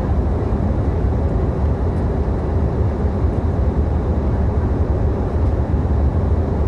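Passenger airliner cabin in cruise flight: a steady, deep rumble of engine and airflow noise with a faint constant hum.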